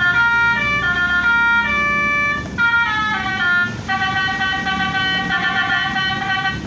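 Electronic telolet horn module, Arduino-driven through a class-D amplifier, playing a tune of horn-like notes that step up and down in pitch, with short breaks about two and a half and four seconds in.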